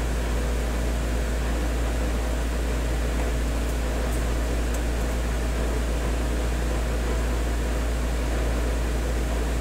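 Steady background hiss with a strong, constant low hum and no other sound of note, the noise floor of a recording microphone. A few faint ticks come between about three and a half and five seconds in.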